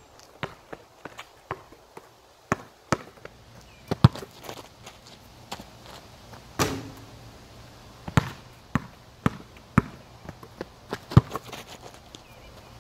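Basketball bouncing and footsteps on a concrete driveway: an irregular string of sharp thuds, the loudest about four, eight and eleven seconds in.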